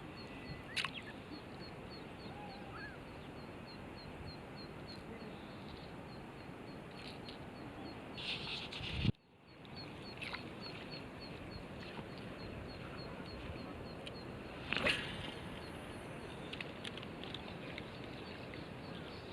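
Outdoor ambience: a steady low hiss, with a faint high chirp repeating about three times a second, like a bird or insect. A few brief louder sounds come near the start, around eight to nine seconds in ending in a sharp knock, and again around fifteen seconds in.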